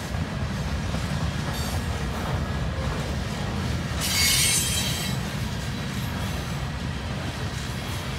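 Freight train cars rolling past with a steady low rumble of wheels on rail. About four seconds in, a wheel squeals high for about a second.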